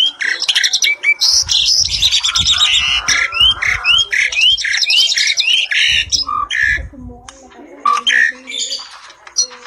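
A pair of Asian pied starlings singing and calling vigorously: loud, varied chattering with harsh squawks and a quick run of short rising whistles, easing off near the end. Some low thumping sounds underneath in two short stretches.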